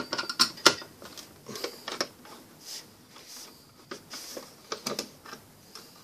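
Irregular sharp clicks and small knocks from a break-glass fire alarm call point being worked at with a thin key or rod.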